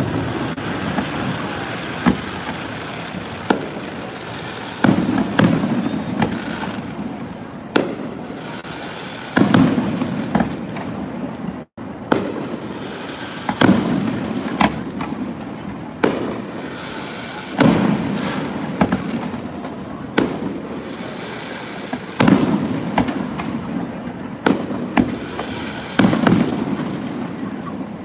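Aerial fireworks display: sharp bangs of shells bursting, often one every second or two, each followed by a rolling echo, over steady crackling.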